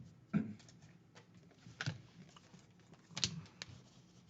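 Trading cards being handled on a table: a few light taps and clicks, three of them sharper, about a second and a half apart.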